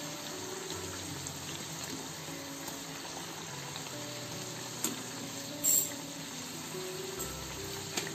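Methi mathri deep-frying in hot oil in a steel kadai: a steady sizzle, with a few clicks of a slotted spoon against the pan as they are turned, the loudest about six seconds in.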